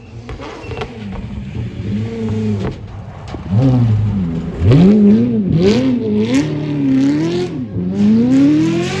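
Ferrari F136 V8 in a Subaru rally car, faint at first, then close by from about three and a half seconds in, its revs swinging up and down sharply several times, then a long rising rev near the end as it accelerates away.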